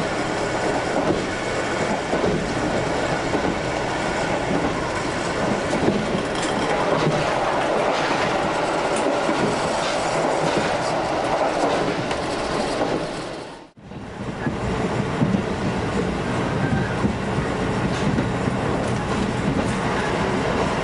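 Running noise inside the passenger car of a KiHa 185 series diesel railcar under way: a steady rumble with occasional faint rail-joint clicks. The sound drops away briefly a little past the middle and comes back.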